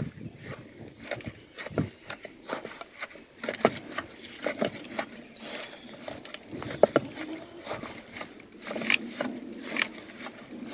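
A hand mixing and pressing a sticky mix of pitted dates and oil-toasted flour in an aluminium pot. Uneven rubbing and scraping, with sharp knocks of fingers against the pot at irregular moments.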